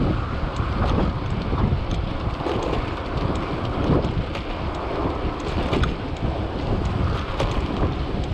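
Wind buffeting the microphone of a camera on a moving bicycle: a steady, loud rumble with scattered faint ticks.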